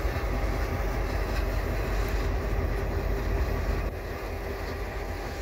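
Diesel locomotives of a freight train rolling slowly past, their engines running with a steady low drone. The sound drops a little about four seconds in as the locomotives move away and the freight cars follow.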